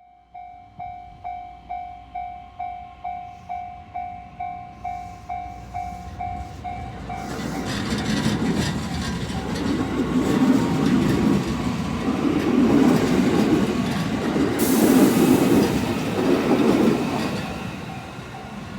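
Japanese railway level-crossing warning bell ringing, about two strikes a second. About seven seconds in, a JR East E131-500 series electric train pulling away drowns it out, its running noise swelling loud with a hiss near the peak, then falling away. The bell is heard faintly again near the end.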